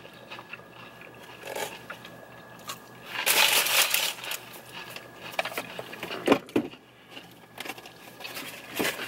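Close-up eating sounds of burgers being bitten and chewed, with a louder crunchy burst about three seconds in and a few sharp clicks later on.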